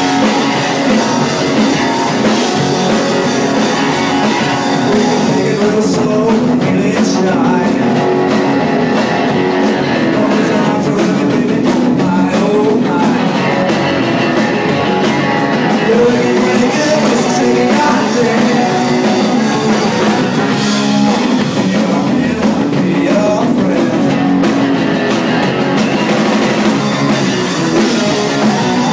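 Garage rock band playing live and loud: electric guitars and drum kit, with singing.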